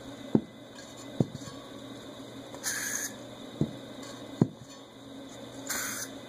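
Two short hissing sprays of Scott's Liquid Gold furniture polish from a spray bottle, about three seconds apart, with several sharp clicks in between.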